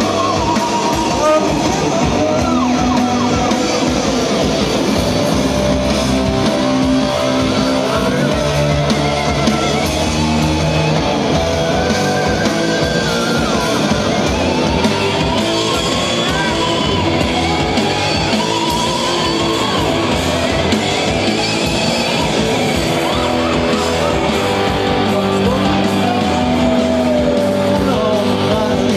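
Psychedelic rock band playing live: electric guitars, keyboard and drums playing loud and without a break, with notes sliding up and down in pitch.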